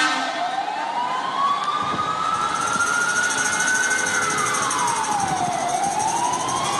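A siren wailing in a slow cycle. Its pitch climbs for about three and a half seconds, falls over the next two, then begins to climb again, over a steady noisy background.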